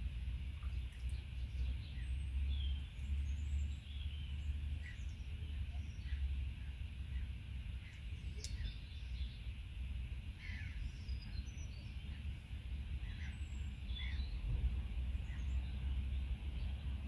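Small birds chirping and calling here and there over a steady low rumble.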